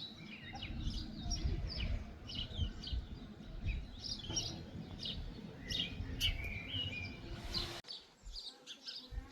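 Several small birds chirping and trilling in quick, overlapping calls, over a low rumble. About eight seconds in, the sound drops away abruptly and the calls become faint.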